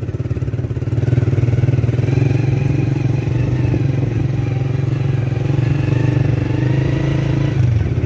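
Motorcycle engine running steadily while riding along a road, picking up a little about a second in.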